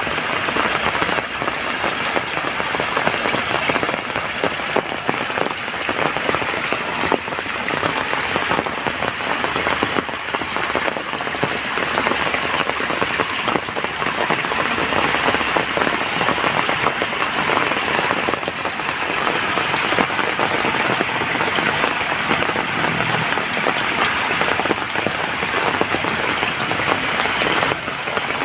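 Steady heavy rain falling on surfaces, a dense hiss dotted with many fine drop impacts.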